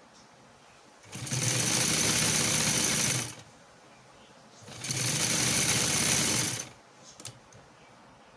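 Sewing machine stitching through fabric in two runs of about two seconds each, the first about a second in and the second near the middle, with short pauses between them.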